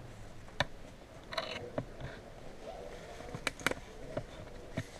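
Scattered airsoft gunshots, about half a dozen sharp single cracks spread irregularly, two of them close together a little after halfway. Faint distant voices murmur underneath.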